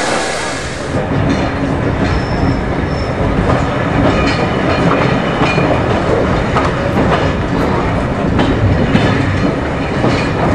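Steam-hauled train running past close by, its wheels rumbling and clattering over the rail joints, with a brief high wheel squeal about two seconds in.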